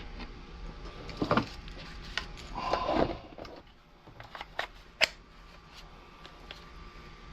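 Handling noise from a battery-powered mini chainsaw being moved and set up: a few knocks, a sharp click about five seconds in, and light ticks. No motor is running.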